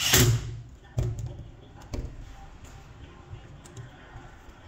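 A cordless drill-driver runs for about half a second, driving a screw into the plastic housing of a Makita DTW1001 impact wrench. Two sharp knocks follow about a second apart, with a few lighter taps, as the tools are handled on the bench.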